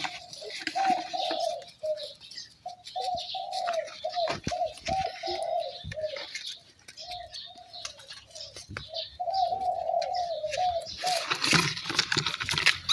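Puppies wrestling in and around a plastic bucket: scuffling and scraping on dirt and dry leaves, loudest near the end, over a near-continuous string of short mid-pitched calls that rise and fall.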